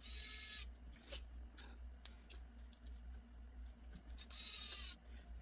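Small screws being driven into a smartphone's frame during reassembly: two short hissing, scraping bursts of about half a second, one at the start and one about four seconds in, with light clicks and taps between.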